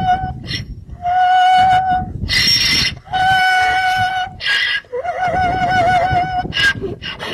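A donkey braying in repeated hee-haw cycles, three in all. Each is a loud, held, wavering high note followed by a short harsh rasp.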